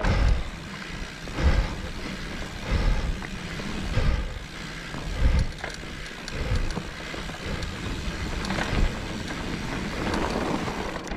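Electric mountain bike riding up a dirt trail: tyre and trail noise with the bike rattling, and low thumps about once every second and a bit.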